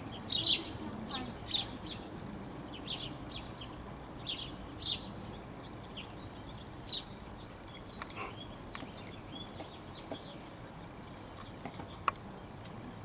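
Small birds chirping in short, high peeps, several in the first five seconds and fewer after, with one sharp click near the end.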